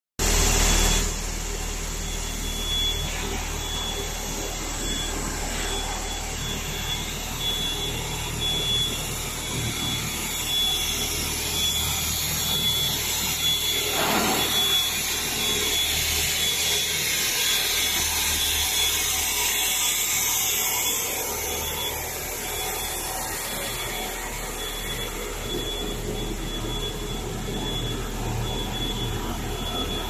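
Machinery of a cable extrusion line running in a factory hall: a steady whirring noise over a low electrical hum, with a thin high whine that flickers on and off. It is louder for about the first second.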